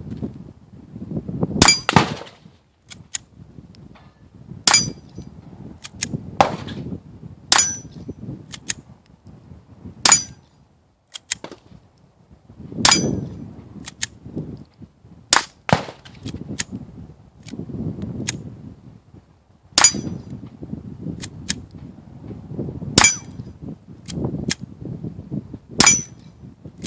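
Suppressed Smith & Wesson M&P 22 pistol firing CCI Quiet .22 rounds one at a time, about ten quiet cracks a few seconds apart, each followed by the ring of a struck steel plate that is louder than the shot. Between shots there is handling noise as each round is chambered by hand, because the low-powered rounds don't cycle the action.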